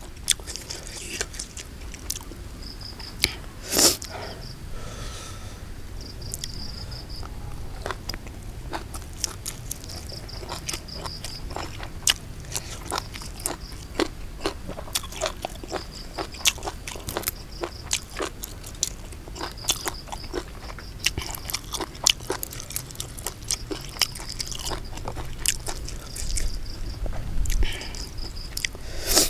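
Close-up mouth sounds of a man eating raw beef with bitter bile dipping sauce and fresh chilies and vegetables: wet chewing and smacking with crisp crunches at an irregular pace. A short high chirp recurs every few seconds behind it.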